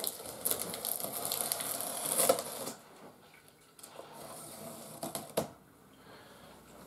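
Box cutter slicing through the packing tape along a cardboard box: a dense scratchy crackling for the first two to three seconds, then quieter cardboard handling with a sharp click about five seconds in.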